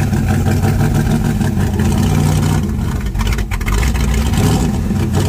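Jeep's exposed engine running with the hood open, a steady loud note that dips briefly about three seconds in.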